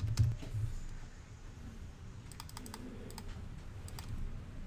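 Typing on a computer keyboard: scattered key clicks, then a quick run of keystrokes about two and a half seconds in. A few low thumps near the start are the loudest sounds.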